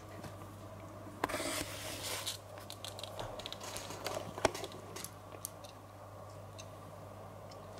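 Faint handling noise of a camera being picked up and turned around: scattered small clicks, rustles and scrapes over a steady low hum.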